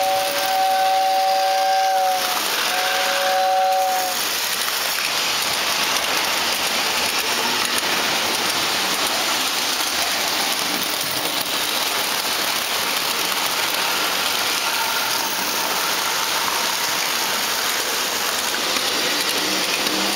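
Lionel model steam locomotive's whistle sounding a two-note chord in two long blasts, the second shorter, over the first few seconds. Then the steady running noise of the model trains on the three-rail track.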